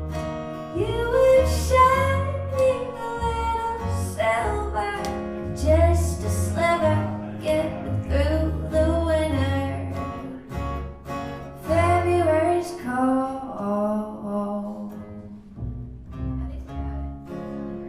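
A woman singing live to guitar accompaniment, with low bass notes under the plucked strings. The singing thins out and the music grows quieter over the last few seconds.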